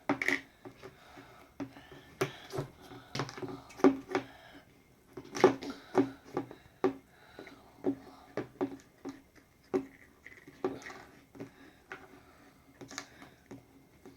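Play-Doh being patted and pressed flat by hand against a tabletop: a run of irregular taps and knocks, several a second at times, with the loudest thumps about four and five and a half seconds in.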